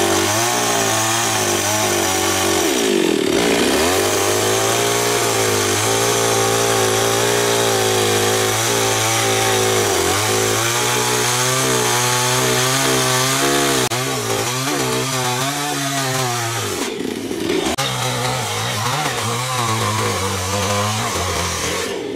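Two-stroke chainsaw cutting into a wooden block, its engine pitch wavering up and down as the chain bites and the throttle is worked. Twice, a few seconds in and again about three-quarters through, the engine drops briefly and revs back up.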